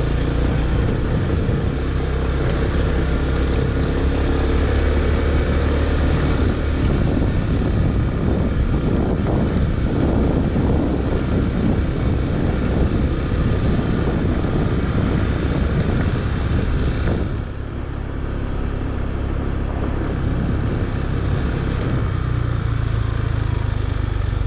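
Honda scooter's engine running as it is ridden over a rough dirt track, with a brief easing of the noise about two-thirds of the way through.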